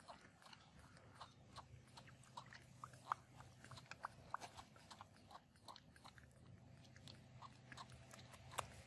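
Baby monkeys sucking milk from feeding bottles: faint, irregular wet clicks and smacks, a few a second, over a low steady hum.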